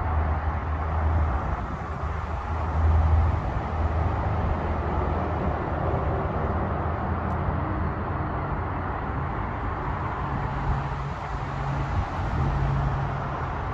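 Steady outdoor background rumble and hiss of an open-air field recording, with slightly louder swells about one and three seconds in.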